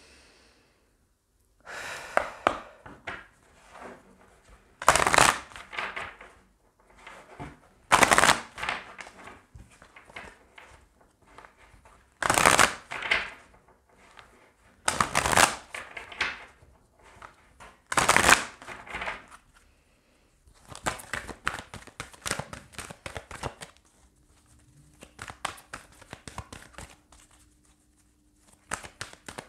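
A deck of oracle cards being shuffled by hand: six loud, short riffling bursts about three seconds apart, then a long run of quick clicking card flicks in the last several seconds.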